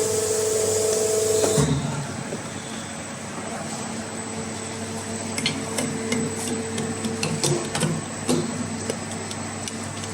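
CNC arch-bending machine running: a steady motor whine with a hiss for about the first one and a half seconds, then a steady low hum with scattered clicks and knocks.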